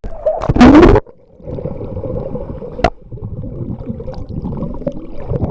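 Waterproof camcorder microphone in swimming-pool water: a loud splash-like rush about half a second in, then a muffled low underwater rumble with a faint steady hum and a single sharp click near the middle.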